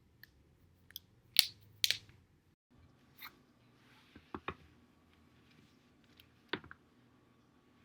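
Spinal joints cracking as a back is rolled over a foam roller: a series of sharp pops, loudest in a cluster about one and a half to two seconds in, with a few more scattered cracks later.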